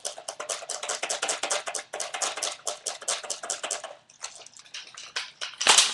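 Airsoft high-capacity magazine being wound: a fast run of ratcheting clicks from its winding wheel, thinning out after about four seconds. Near the end comes a single loud, sharp mechanical clack.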